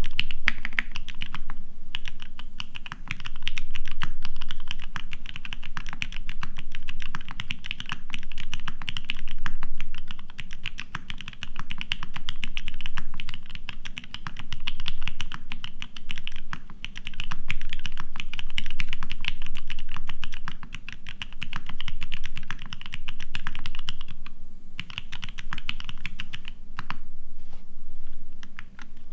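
Fast continuous typing on a custom mechanical keyboard with lubed, filmed Mauve switches, a polycarbonate plate and Cherry doubleshot keycaps: a rapid stream of soft key clacks with a lower thock under them, broken by brief pauses.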